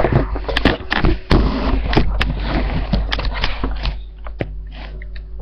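Handling noise from a webcam being carried: repeated knocks and the rustle of fabric rubbing close to the microphone, settling down about four seconds in.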